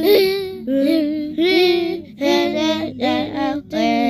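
A child's voice singing wordless sound effects: a string of short held notes, each with a wavering pitch, about six in a row with brief breaks between them.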